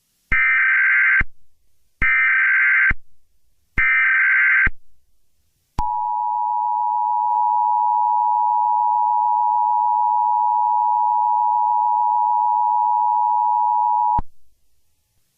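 Emergency Alert System SAME header: three harsh data bursts of about a second each. A steady two-note EAS attention tone follows, held about eight seconds, then cut off. Together they mark the start of a new emergency alert broadcast.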